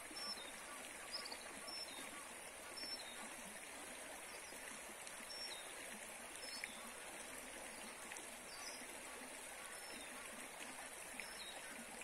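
Shallow river running over rocks: a steady, gentle flow, with brief high chirps scattered through it.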